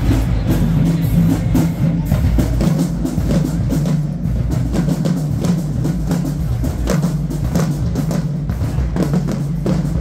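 Marching band playing, with drums beating a steady march rhythm over held low notes.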